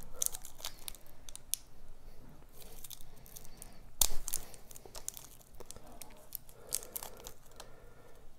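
Small plastic toy wrapping crinkling and tearing under the fingers in scattered crackles, with one sharper snap about four seconds in.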